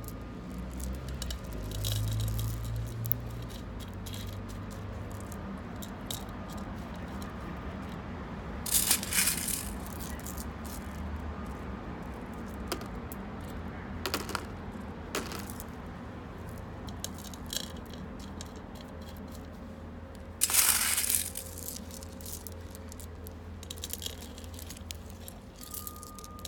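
Small pebbles clicking and rattling against each other as they are set by hand onto the potting soil of a terracotta pot, in many short, scattered clicks, with two longer, louder rattles about 9 and 21 seconds in.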